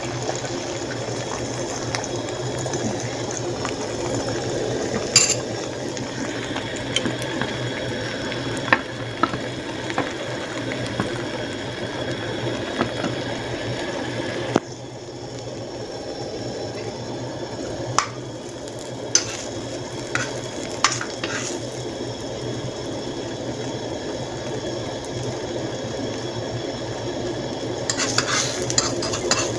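Beaten egg frying in an oiled pan, a steady sizzle that drops a little in level about halfway through. A few sharp clicks of a spatula against the pan.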